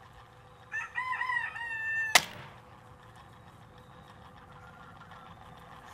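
A rooster crowing: one crow of about a second and a half with a few pitch bends, ending on a held note. It is cut off by a single sharp crack, the egg breaking.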